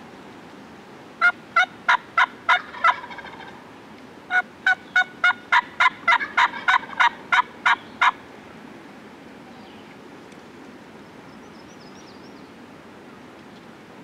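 Wild turkey yelping in two runs of evenly spaced yelps, about three a second: six yelps, then after a short pause a longer run of about a dozen.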